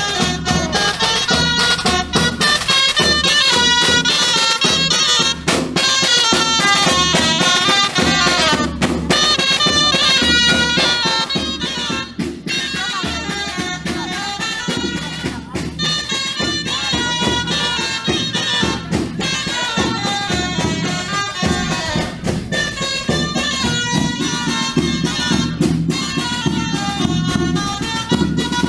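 Traditional folk dance music: a reedy wind instrument plays a quick, ornamented melody over a steady drum beat.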